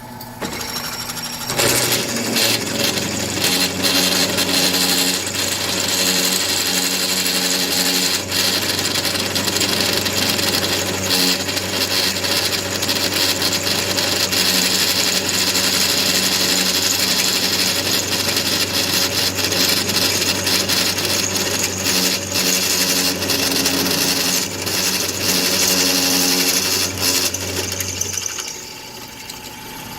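Small half-inch benchtop drill press running under load as a freshly resharpened 29/64-inch twist drill cuts through metal, its motor hum steady beneath a loud, rough cutting chatter and rattle; the press is undersized for a bit this big. The drilling starts about a second and a half in and the motor winds down near the end.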